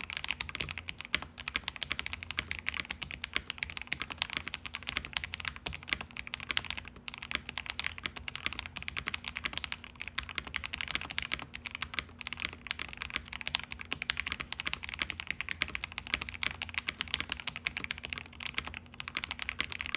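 Continuous fast typing on a custom 65% mechanical keyboard with lubed KTT Mint linear switches on a polycarbonate plate, a rapid run of keystroke clacks.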